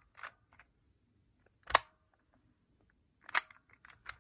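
Sharp, scattered clicks from a Shengshou magnetic Rubik's clock as its pins are pressed and its dials turned: a few light clicks, one loud click a little under two seconds in, and a quick cluster near the end.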